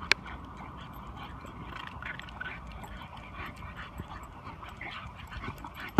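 French bulldog and Chinese Shar Pei puppies play-fighting, with many short, scattered dog noises. A single sharp click comes just after the start.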